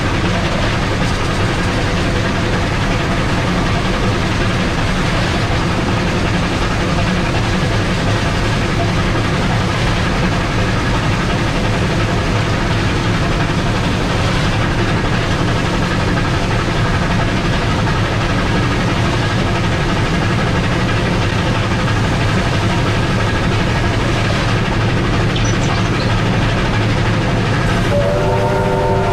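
Steam locomotive 3801 running at speed, heard from on board: a steady, loud din of wheels on rail and running gear.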